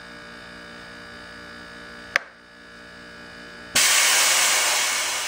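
Homemade pneumatic Nerf Rival launcher charged to 140 psi: a sharp click about two seconds in, then near the end a sudden loud rush of compressed air as it fires, fading slowly. A steady hum runs underneath before the shot.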